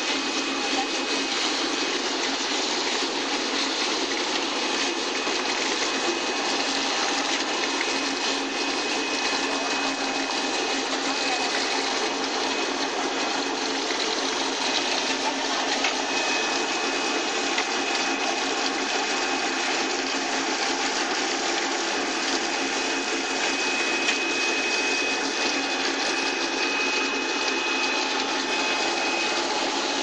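Apple washing machine running: the water in its bubble-wash tank churning, along with the steady hum of the machine's motor and conveyor. A constant noise carrying a faint, high, steady whine.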